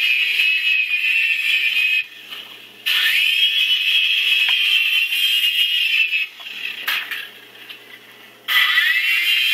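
Small electric motors of a cheap two-channel toy helicopter whining high-pitched as the rotors spin. The whine cuts out twice, about two seconds in and again about six seconds in, and spins back up with a rising whine each time the throttle comes back.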